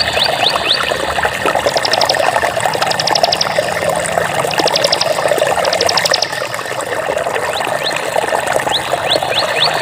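Water flowing steadily, with short high rising chirps repeating near the start and near the end, and four quick high trills in between.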